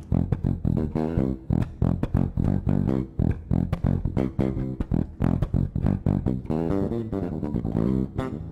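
Electric bass guitar played solo and fingerstyle: a quick, continuous run of plucked notes.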